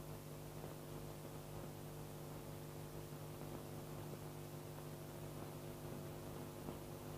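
Steady electrical hum with many overtones over a bed of hiss: the background noise of an old 16mm film soundtrack copied to VHS, with a few faint clicks.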